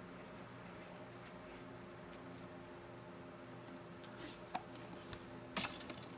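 Quiet handling of paper and glue at a craft table over a steady low hum, with faint scattered ticks and a brief cluster of sharp taps and clicks about five and a half seconds in.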